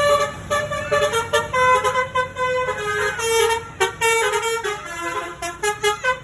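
Bus telolet horn, a Basuri multi-tone musical horn, playing a tune: held horn notes that step up and down in pitch, with a few short breaks between phrases.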